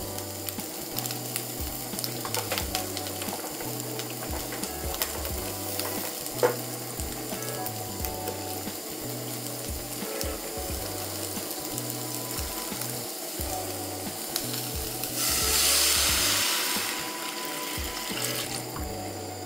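Sliced onions sizzling as they fry in a small frying pan, with a steady crackle. Near the end, water is poured into the hot pan with a loud hiss lasting under two seconds.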